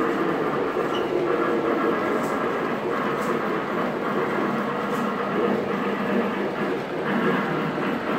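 O-scale model steam train with heavyweight passenger cars running along three-rail track toward the listener, a steady mechanical running sound with a few faint ticks.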